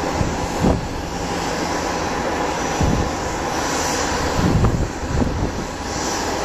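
Airbus A319-131's IAE V2500 turbofan engines on final approach, heard from the ground as a steady rushing hum. Wind buffets the microphone in a few low gusts.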